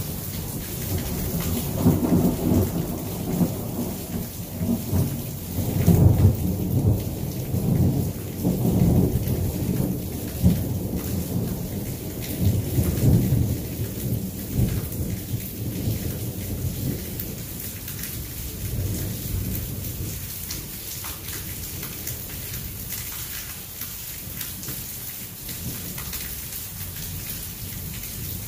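A long roll of thunder over steady rain. The rumble builds within the first two seconds, swells several times, and dies away by about twenty seconds in, leaving the even hiss of the rain.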